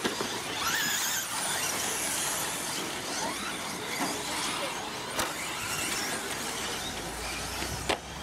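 Radio-controlled 2WD short course trucks racing on a dirt track, their motors whining in pitch that rises and falls as they speed up and slow down. A sharp click stands out near the end.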